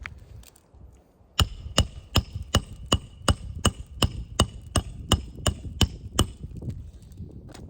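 A hammer driving a roofing nail through asphalt shingles: about fourteen quick, even blows, nearly three a second, each with a short metallic ring. The blows start about a second and a half in and stop a little over a second before the end.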